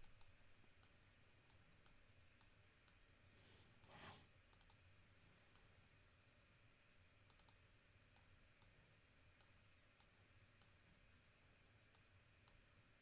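Near silence, broken by faint, irregularly spaced computer mouse clicks, a little more than one a second, some in quick pairs, with a soft rustle about four seconds in.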